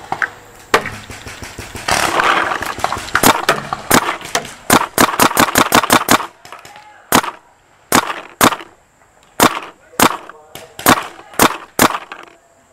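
Paintball marker firing: sharp shots at an irregular pace, sometimes several a second in quick runs, beginning about three seconds in.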